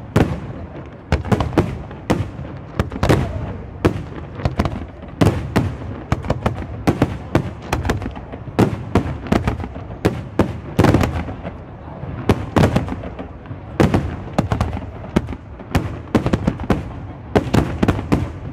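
Aerial firework shells bursting in rapid, irregular succession: sharp bangs about two a second, each trailing off into a rumble as the next follows.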